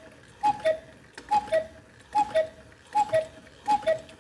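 Cuckoo clock with a German Black Forest movement, its bellows and pipes sounding the cuckoo call, a higher note falling to a lower one. The call repeats about once a second, five times, with a sharp mechanical click at each call as the clock calls the hour.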